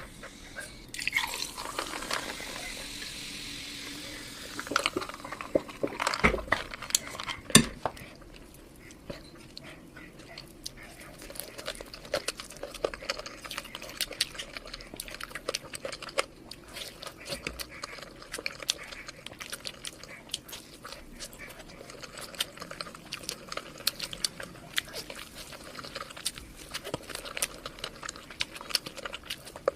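Close-miked eating: chewing with many irregular small wet mouth clicks, with a couple of sharper knocks about six and seven and a half seconds in.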